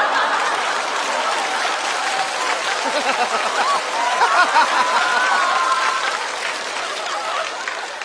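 Studio audience laughing and applauding after a punchline, with one person laughing loudly over the crowd about halfway through.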